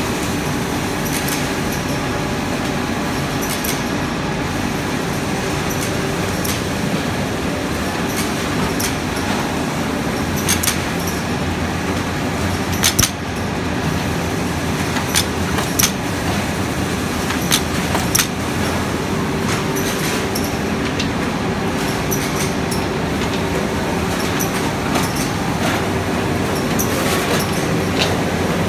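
Automatic book-sewing machine running: a steady mechanical clatter with a faint hum, and sharp clicks here and there.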